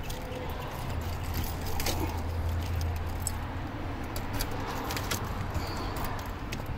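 A bunch of keys jangling in hand, many light metallic clicks and rattles, over a low steady hum that is strongest in the first half.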